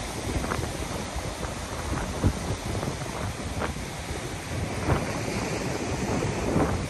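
Heavy surf breaking on a rocky shore and washing through the gaps between the rocks, a steady rush of sea noise, with wind rumbling and buffeting on the microphone in a few brief gusts.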